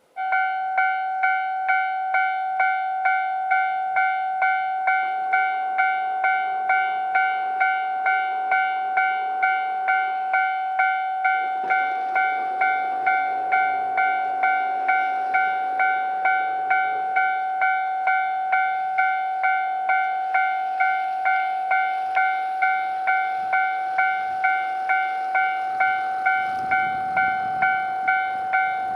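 Japanese railway level-crossing warning bell ringing steadily, an electronic ding repeating about one and a half times a second. A low rumble builds near the end as the KiHa 261 diesel train approaches.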